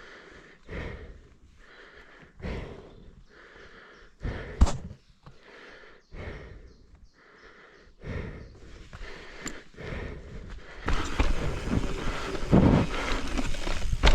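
A mountain biker breathing hard, with rough breaths about once a second. About eleven seconds in, a louder steady rush of wind and tyre noise takes over as the bike gets rolling.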